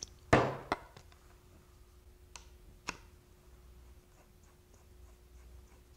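Hand-tool handling clicks: a sharp knock about a third of a second in, a lighter click just after, two light clicks near the middle and faint ticking later, as a screwdriver and weight bolt are worked on a billiard cue butt at a wooden desk.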